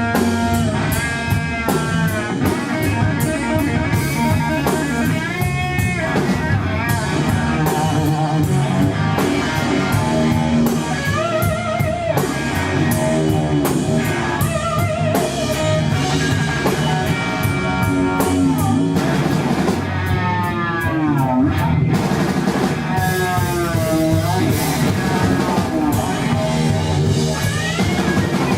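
Live rock trio of electric guitar, bass guitar and drum kit playing an instrumental passage. The lead guitar line has many notes that slide up and down in pitch and waver, over a steady bass and drum groove.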